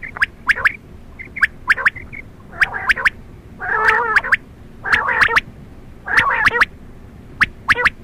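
Quail calls (batair), the kind played as a hunting lure: short call phrases repeated roughly once a second. Each phrase is a quick run of sharp, clicking notes, and some carry a harsher, gargling burst.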